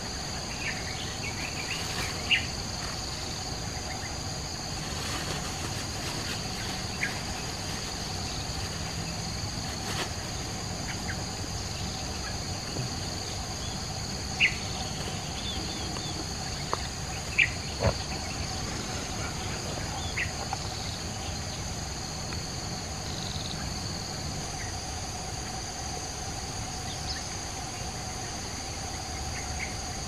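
Steady drone of insects, several high pitches held without a break. A few short sharp chirps and clicks break through it, the loudest about two seconds in and again around fourteen and seventeen to eighteen seconds in.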